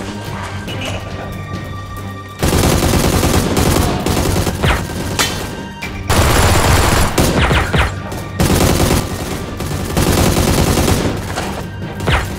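Rapid automatic gunfire sound effects in several long, loud bursts starting about two and a half seconds in, over background music.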